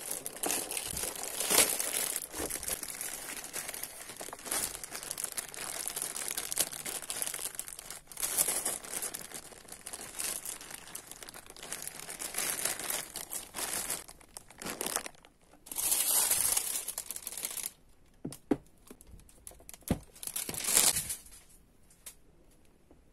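Clear plastic packaging bag crinkling as it is handled, continuous for about the first fourteen seconds, then in three short bursts with a couple of sharp clicks before it goes quiet.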